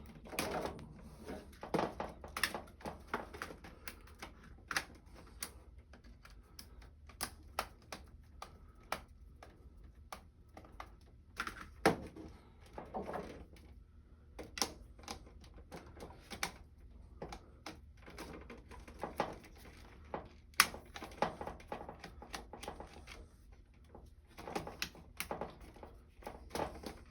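Irregular sharp clicks and light rattles as insulated wires and quick-connect spade terminals are handled and pushed onto the terminals of a replacement motor overload. The two loudest clicks come about twelve and twenty seconds in.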